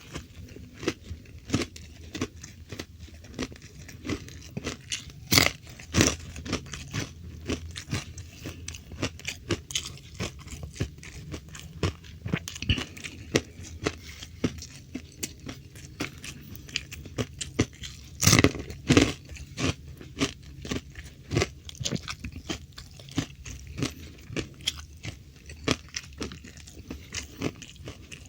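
Close-miked chewing and crunching of food, a steady run of small crunches with louder crunchy bites about five seconds in and again around eighteen seconds in.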